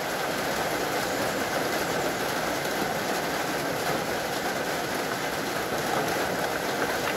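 Steady, even rushing noise with no breaks or distinct strikes.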